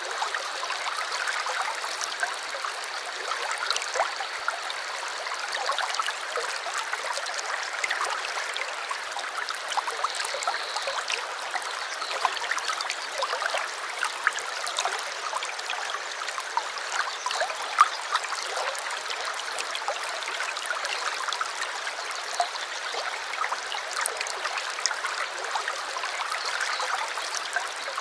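A small stream babbling and trickling steadily over stones, with many small splashes and plops.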